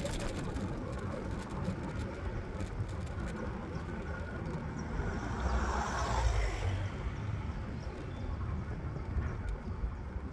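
Electric scooter riding over asphalt: a steady low rumble of small tyres on the road with wind on the microphone, swelling briefly about six seconds in.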